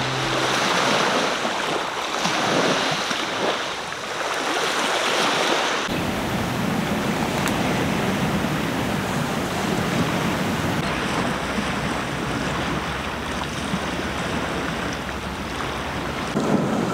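Sea waves washing on a shore, swelling and easing, with wind on the microphone. About six seconds in the sound changes abruptly and a low rumble joins it.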